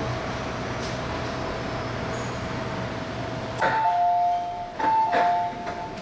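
Steady hum of an MTR M-Train's onboard equipment in a stopped car. About three and a half seconds in, it gives way to a two-tone door chime, a high note followed by a longer lower note, repeated twice: the warning that the doors are about to close.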